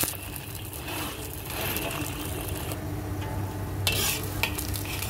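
Minced fish patty sizzling in hot oil in a wok, with a metal spatula scraping against the pan as it works under the patty; the sharpest scrape comes about four seconds in.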